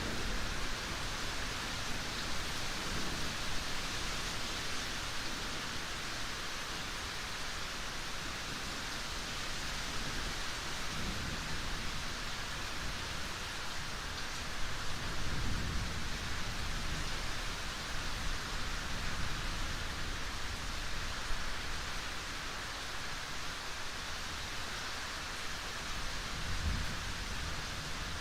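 Steady rain hiss, with a few brief low rumbles of distant thunder, the longest about halfway through.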